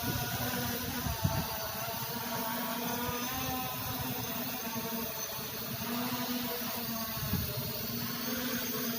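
Holystone HS700 quadcopter drone's propellers buzzing steadily, with a slight waver in pitch, while wind buffets the microphone in gusts.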